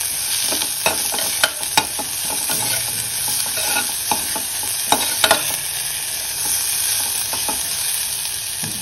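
Chopped carrot and spinach sizzling in hot oil in an aluminium pressure cooker while a metal spoon stirs them, with several sharp scrapes and clinks of the spoon against the pan over a steady sizzle.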